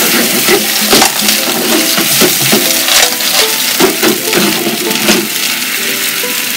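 Manila clams in their shells clattering against each other and the frying pan as they are stirred with chopsticks, over a steady sizzle. The clatter stops about five seconds in. Light background music plays underneath.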